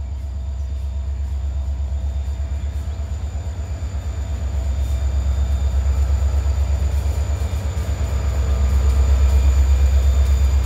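Reading & Northern diesel locomotive 3051 approaching: its engine gives a deep, throbbing rumble that grows steadily louder as it nears.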